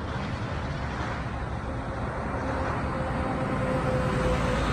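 Steady low vehicle rumble that slowly grows louder, with a faint hum coming in about halfway through.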